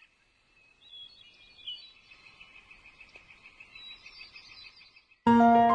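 Outdoor nature ambience: birds chirping over a steady, fast trilling chorus. Near the end, piano music starts suddenly and much louder.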